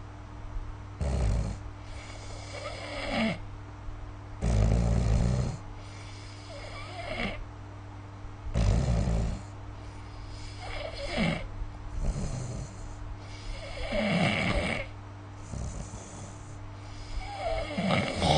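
A sleeping person snoring: a loud, low snore about every four seconds, alternating with softer, higher snores on the other half of each breath, over a steady low hum.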